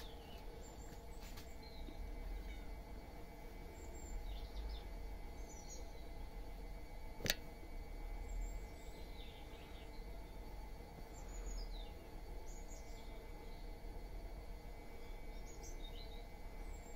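Small birds chirping now and then in the background over a steady low noise, with one sharp click about seven seconds in.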